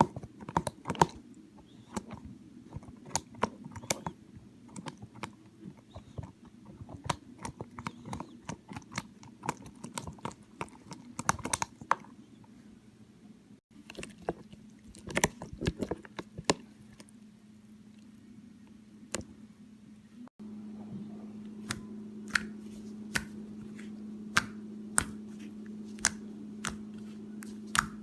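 Slime being handled, giving sharp, irregular clicks and pops over a steady low hum. The background hum changes abruptly twice, and is louder and steadier in the last part.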